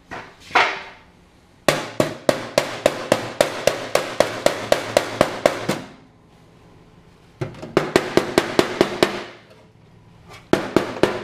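Hammer blows on the sheet-steel inner fender, quick and evenly spaced at about five a second, each with a short metallic ring. They come in a long run of about four seconds, then a shorter run after a pause, and a third run starts near the end.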